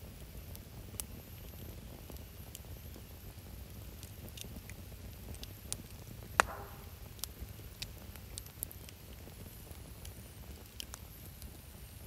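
Wood campfire of stacked split logs crackling, with scattered sharp pops and one much louder pop a little after halfway, over a low steady rumble.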